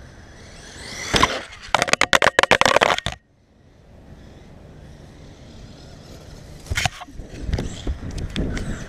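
Traxxas E-Revo RC truck's electric motor whining up in pitch as it accelerates off the ramp, then a hard knock about a second in and a fast clattering rattle for about a second and a half that cuts off suddenly as the truck lands and tumbles. Later comes a single knock and uneven bumping as it drives over the lawn.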